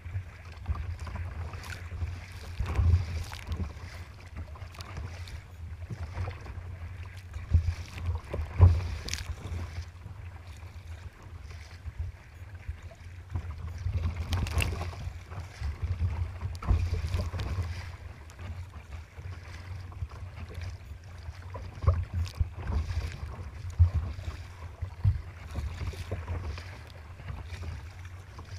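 Choppy waves splashing against and over a sea kayak's bow, with wind buffeting the microphone as a constant low rumble. The loudest splashes come irregularly every few seconds, the biggest about halfway through as spray comes over the deck.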